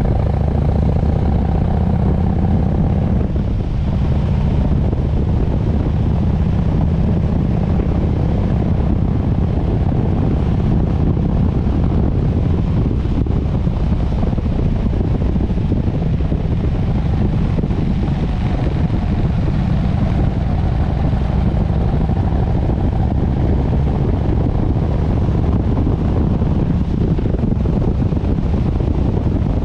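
Harley-Davidson Sportster S's V-twin engine running steadily as the motorcycle rides along, mixed with wind noise on the microphone.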